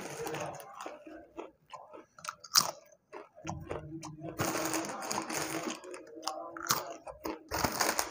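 Kurkure corn puffs being bitten and chewed: a run of sharp crunches, the loudest about two and a half seconds in, with a short pause just after, then denser crunching.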